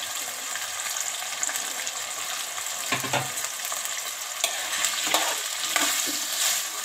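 Diced potatoes sizzling steadily in hot oil in a pan. In the second half a few short scrapes and clicks come from a steel spoon stirring them.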